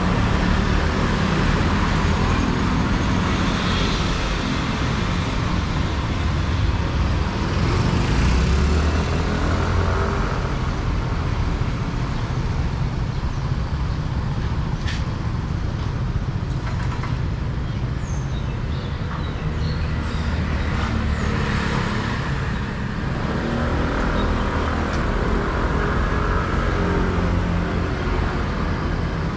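City street traffic: motor scooter and car engines running steadily, swelling louder as vehicles pass every few seconds.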